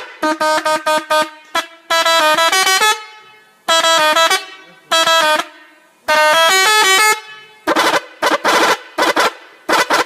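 Indonesian 'telolet' musical bus horn playing its tune: a string of loud tooted phrases, several horn notes stepping up and down in pitch, with short gaps between the runs.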